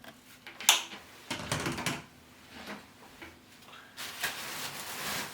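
Parts and packaging of a wet/dry vacuum cleaner being handled in its box: a sharp click about two-thirds of a second in, then rustling and scraping of cardboard and plastic, denser near the end.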